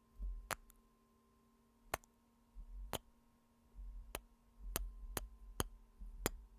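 Close-up kiss sounds into the microphone: about eight sharp lip smacks spread unevenly over several seconds, several with a low thud on the mic.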